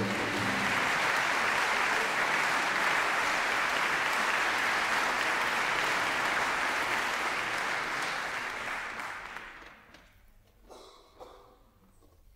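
Audience applauding steadily, dying away about ten seconds in, followed by a few faint knocks and shuffles.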